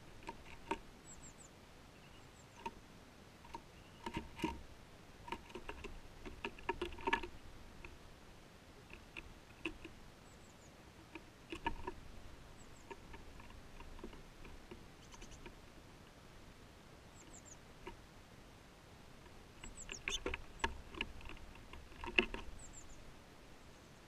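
Close, sharp tapping in irregular quick runs from a small bird pecking at fat balls in a net feeder, with brief thin, high descending calls of small birds now and then.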